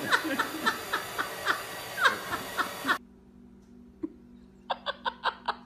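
A young woman laughing hysterically in rapid, high-pitched squeals, several a second, each dropping in pitch, cut off suddenly about three seconds in. Near the end comes a quick run of short, high chirps.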